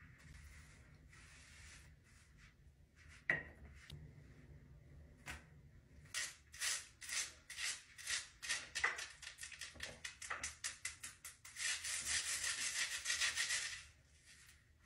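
Hands rubbing and scratching over slicked-back hair close to the microphone: a sharp click about three seconds in, then a run of short scratchy strokes, building to a stretch of dense continuous rubbing near the end.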